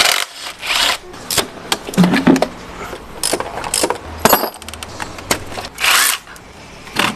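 Metal hand tools and engine parts clinking and knocking as the top of a car engine is dismantled, with a quick run of fine clicks about four and a half seconds in.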